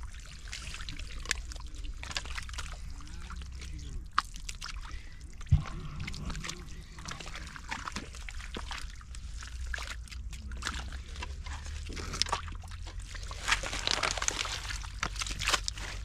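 Water splashing, sloshing and trickling in shallow muddy water, irregular and uneven, over a steady low hum, with one sharp thud about five and a half seconds in.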